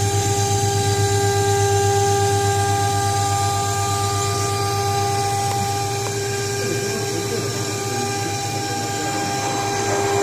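A CNC router's water-cooled 3 kW spindle whines steadily at one high pitch as it engraves a door-panel pattern into a wooden board, with a low, rapidly pulsing hum beneath.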